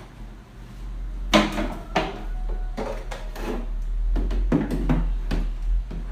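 Whole watermelons being set into a plastic freezer drawer: a string of knocks and thumps as they are placed and shifted. A steady low hum runs underneath.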